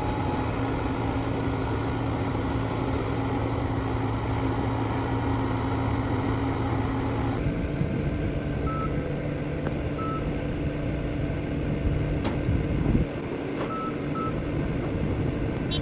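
Vehicle engine running steadily, with a change in its note about halfway through and a few short high beeps in the second half.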